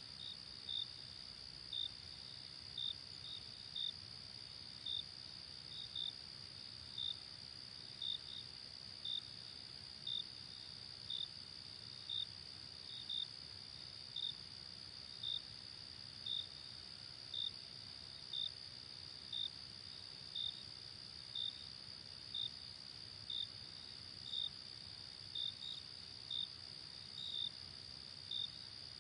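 Night insect chorus: crickets giving a steady high-pitched trill, with one cricket chirping about once a second, now and then twice in quick succession. A faint low rumble lies underneath.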